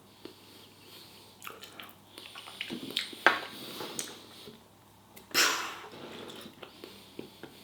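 A man eating: quiet chewing and mouth sounds with scattered small clicks, and a short loud breath about five and a half seconds in.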